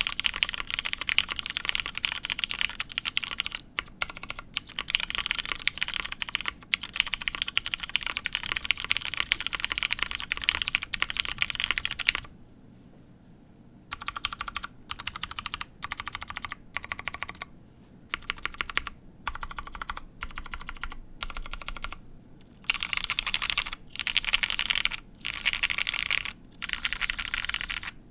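Typing on a mechanical keyboard with lubed Hyperglide MX Brown tactile switches, a polycarbonate plate and GMK keycaps. Keystrokes click rapidly and steadily for about twelve seconds, stop briefly, then come in short separate bursts before fast typing picks up again near the end.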